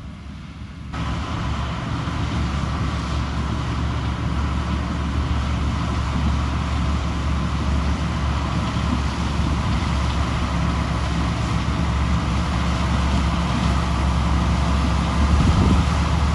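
Heavy farm machinery engine running steadily under load, cutting in sharply about a second in and holding a constant low drone, a little louder near the end.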